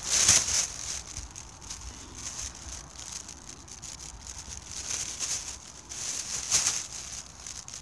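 Rustling and crinkling from movement through dry leaf litter and brush, with a louder crunch just after the start and another near the end.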